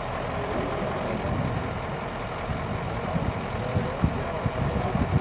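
Diesel engine of a fire-brigade crane truck running steadily at idle.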